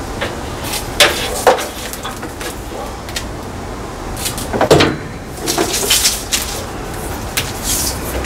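Handling noise from feeding an electrical cable through a bus's engine bay: scattered clicks and knocks, two sharp ones about a second in and a louder clunk near the middle, with brief rustling and scraping of the cable.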